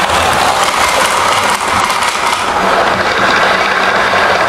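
A model train running on the layout track close to the microphone: a steady, loud rattle of wheels on rails with the motor's whir, dulling a little about halfway through as it moves on.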